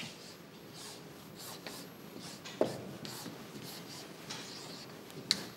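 A marker writing on a whiteboard: a run of short scratching strokes as letters are drawn. Two sharper taps stand out, one about two and a half seconds in and one near the end.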